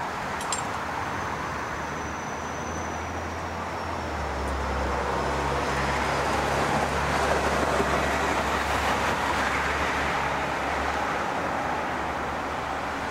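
City street traffic: a steady wash of road noise, with a vehicle's low engine rumble coming in and passing, loudest around the middle.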